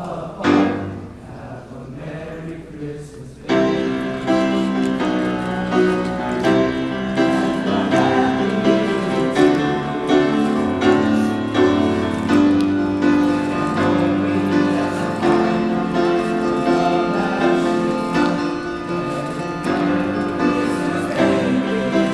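Men's choir singing. The singing is sparse and quieter at first, then grows much louder and fuller about three and a half seconds in and carries on as sustained chords.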